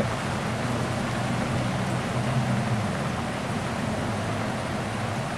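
Steady hiss of rain falling outside.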